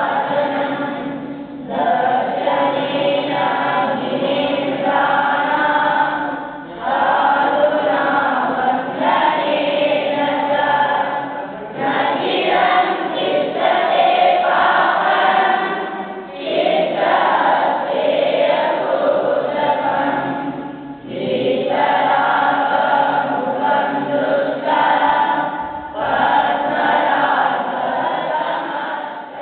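A large group of children chanting Jain mantras in unison, in phrases of about five seconds with brief pauses between them.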